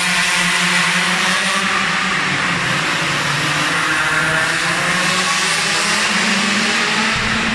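Several minimoto pocket bikes' small two-stroke engines buzzing as they lap. Their pitches rise and fall and overlap as the bikes brake and accelerate through the corners.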